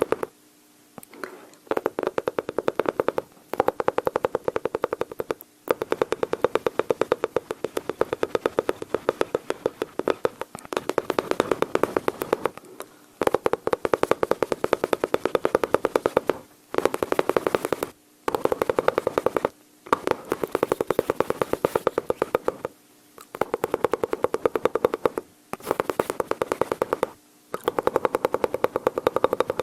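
A person's mouth imitating machine-gun fire: rapid staccato clicks and voiced rattling in bursts of one to three seconds, with short pauses between them.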